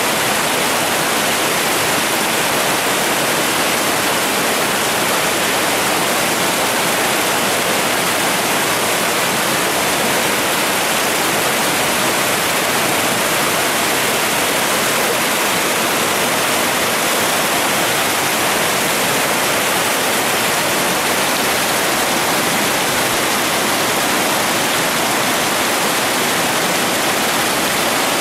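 Steady rush of a mountain stream cascading over boulders and small falls, an unbroken even roar of water.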